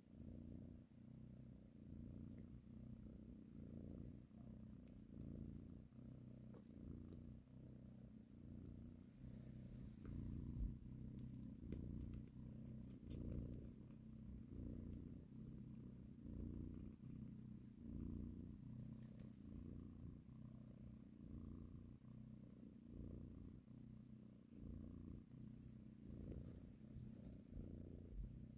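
Cat purring while kittens nurse, a low, continuous purr that swells and fades in a regular rhythm with each breath. A few faint ticks are heard now and then.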